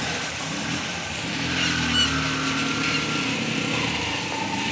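A small motor-vehicle engine running steadily through floodwater, over a hiss of water. The engine rises a little partway through.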